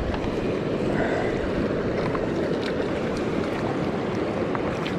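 Steady rush of fast-flowing creek water running high.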